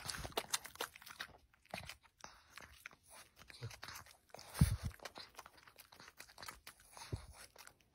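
Boston terrier crunching and chewing a bite of crisp food held out in a hand, a run of short crunches and wet chewing clicks. A louder dull thump comes about four and a half seconds in.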